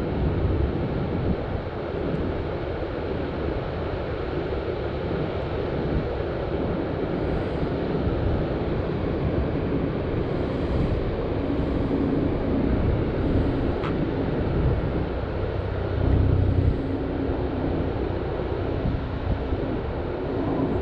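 Steady outdoor rushing noise with no clear pattern. A faint low hum comes and goes in the second half.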